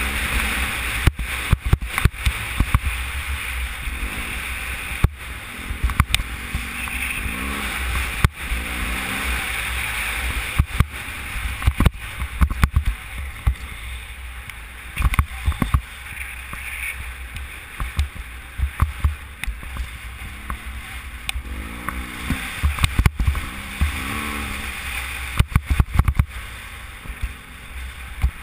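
BMW F800GS parallel-twin motorcycle running off-road, heard through heavy wind buffeting on a helmet-mounted camera. Repeated sharp knocks come from the bike jolting over the rough gravel track, and the engine note rises and falls a few times as the rider works the throttle.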